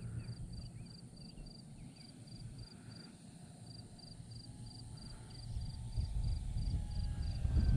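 Insect chirping steadily, about three short chirps a second, over a low rumble that grows louder toward the end. From about halfway, the faint steady whine of the E-flite Air Tractor's electric motor and propeller comes in as the model plane approaches low to land.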